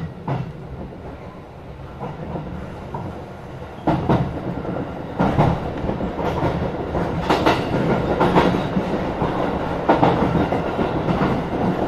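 Tokyo Metro 16000 series electric train rumbling along with its wheels clacking over rail joints. It grows louder, and the clacks come slightly closer together as it picks up speed.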